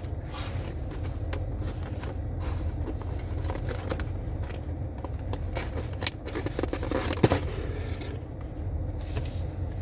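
Steady low rumble with scattered small clicks and rustles of things being handled, and one sharp click about seven seconds in.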